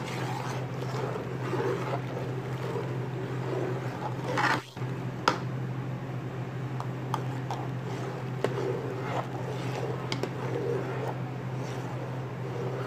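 Metal spoon stirring milk with rice paste in a steel pot: soft liquid swishing with scattered light clinks and scrapes of the spoon against the pot, over a steady low hum. There is a sharper click about five seconds in.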